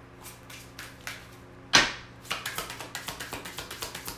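A deck of oracle cards shuffled by hand: a few soft card swishes, one sharp knock a little under two seconds in, then a fast run of card flicks, several a second.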